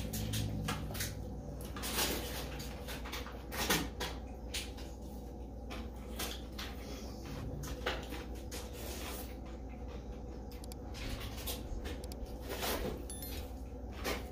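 Eating noises: a fork and spoon clicking lightly and irregularly against a ceramic bowl, with chewing and a few longer slurps of noodles.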